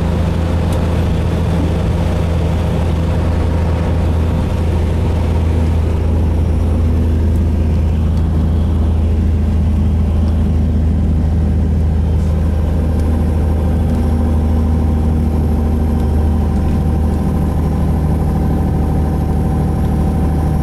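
Beechcraft Bonanza V35's flat-six piston engine and propeller running at low power after landing, heard from inside the cabin as a steady low drone. A rushing hiss of airflow and wet-runway spray fades out about a third of the way in as the plane slows.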